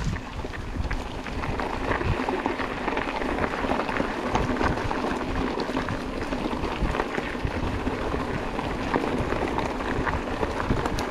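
Mountain bike riding on a dirt trail, heard through an action camera: wind buffeting the microphone in a steady uneven rumble, with scattered small clicks and crackles from the tyres and bike on the trail.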